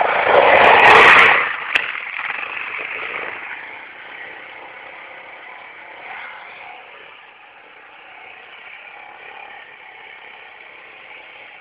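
Yamaha Raptor ATV engine revving loudly close by for about a second and a half as the quad pulls away, then running more quietly and steadily in the distance as it rides off across the field.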